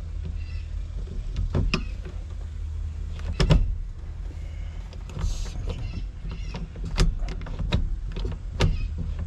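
Scattered metallic clicks and clunks from a newly fitted aftermarket T-handle gear shifter and its loosely bolted mounting in a 1964 VW Beetle as it is worked and aligned, the loudest knock about three and a half seconds in, over a steady low hum.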